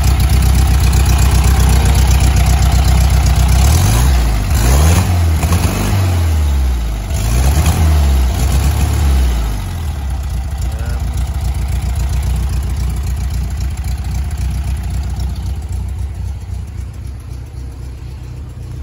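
1969 VW Beetle's air-cooled flat-four engine idling, revved up and back down twice about four and seven seconds in, then settling to a steady idle that grows fainter. The engine is running cold after standing unstarted for a couple of weeks.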